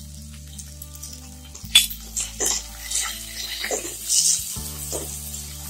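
A spoon knocking and scraping against a kadhai of pan-fried potatoes, several separate clinks over a few seconds, with a faint sizzle. Soft background music with held notes runs underneath.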